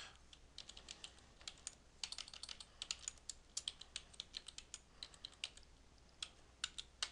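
Faint keystrokes on a computer keyboard, typed in irregular runs as a short phrase is entered.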